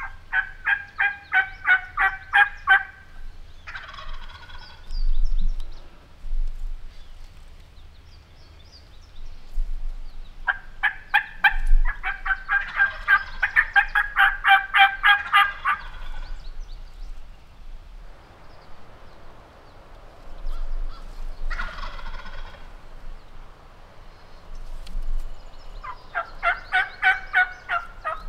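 A turkey call yelping like a hen in three runs of quick, even notes, each several seconds long. Between them a wild tom gobbles twice, once about four seconds in and again about two-thirds of the way through, answering the calling.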